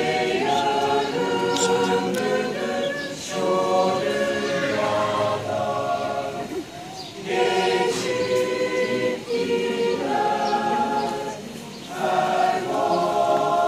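Mixed polyphonic choir of men's and women's voices singing a cappella in several parts at once, in phrases broken by short pauses, the longest about six to seven seconds in.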